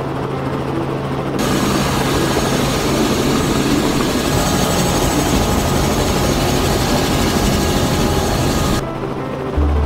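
Steady aircraft noise: a loud even rushing over a low steady hum, starting abruptly about a second and a half in and cutting off abruptly near the end.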